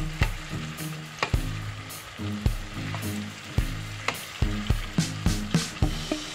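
Sliced onions and green and red peppers sizzling in hot oil in a frying pan, stirred with a wooden spatula that knocks and scrapes against the pan at irregular moments.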